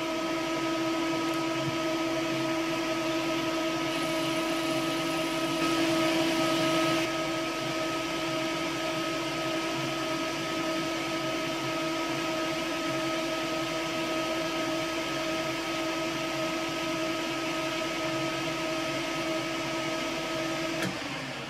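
Metal lathe running steadily with a constant motor and gear whine while a boring bar cuts out the bore of an aluminium V-belt pulley to 18 mm. Near the end the whine drops away as the lathe winds down.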